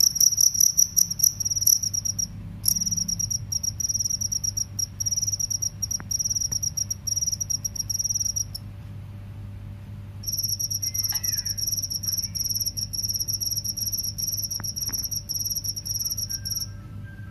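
Field crickets chirping in rapid pulsed trills on a high, clear pitch. The song breaks off briefly about two seconds in, pauses for about two seconds in the middle, and stops shortly before the end.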